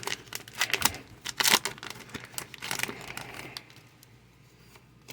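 Crinkling and tearing of a foil Pokémon booster pack wrapper as it is handled and opened, a quick run of crackles that stops about three and a half seconds in.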